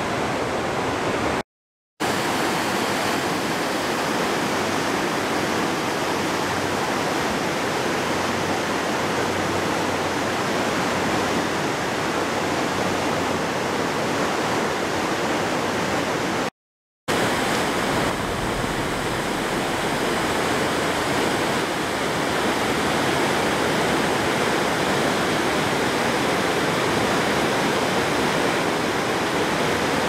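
A mountain river swollen and muddy after a typhoon, rushing through white-water rapids over rocks: a steady, loud rush of water. It drops out twice to a brief silence, once near the start and once about halfway.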